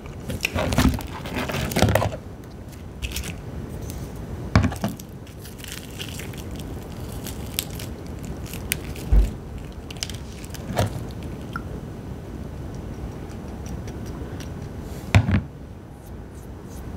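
Crispy fried chicken being pulled apart by hand, the breading crackling and crunching, most densely in the first couple of seconds. A few sharp clicks come through at intervals, and there is one short, dull low thump about halfway.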